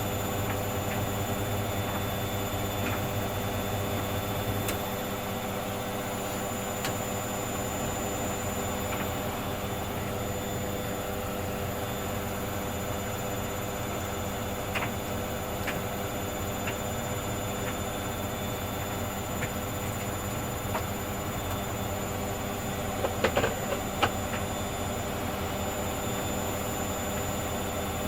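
Hoover Dynamic Next washing machine running a cotton 40 °C half-load cycle, with a steady whine made of several held tones. A low hum drops away about five seconds in. A few light clicks and a brief rattle of knocks come near the end.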